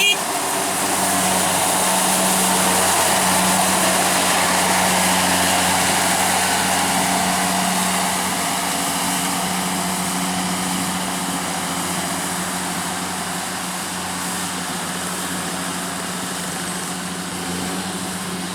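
Kubota DC-70 combine harvester's diesel engine and cutting machinery running steadily under load while harvesting rice. The engine note holds steady and grows a little quieter through the second half as the machine moves off.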